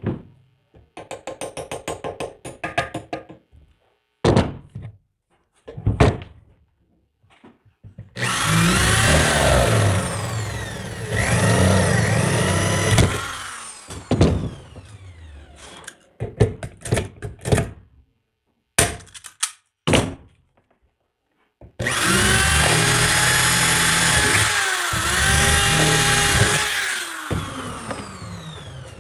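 Corded electric drill running in two long stretches of about five seconds each, its pitch rising and falling as the trigger is worked while it drills into an aluminium profile. Between the two runs come short clicks and knocks of tools being handled on the bench.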